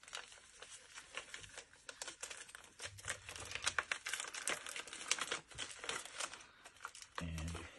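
Wrapping on a small gift package crinkling and tearing as it is pulled open by hand. It goes as a dense run of irregular crackles with a few sharper rips.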